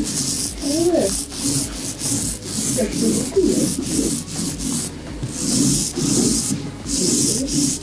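Hand sanding: sandpaper rubbed back and forth in quick rasping strokes, about two to three a second.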